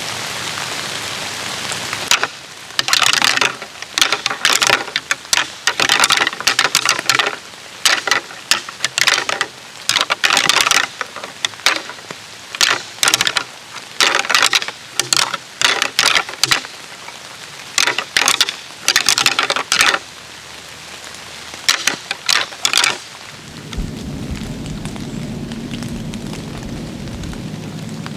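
Rain falling steadily, overlaid for most of the stretch by loud, irregular short crackling patters. Near the end these stop and low, steady music tones take over.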